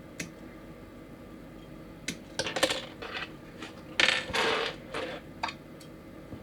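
Small hard plastic model-kit parts clicking and clattering as they are handled: scattered sharp clicks, with two denser bouts of clatter in the middle, the longer one lasting most of a second.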